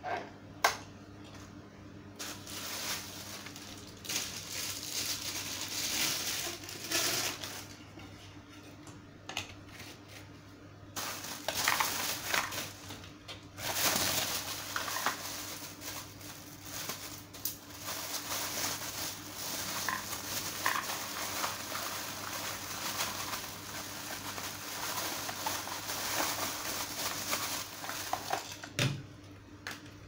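Plastic vacuum cleaner attachments being handled and fitted, with rustling plastic packaging and plastic parts knocking on a tiled floor, coming in irregular bursts. A sharp click about a second in is the loudest sound.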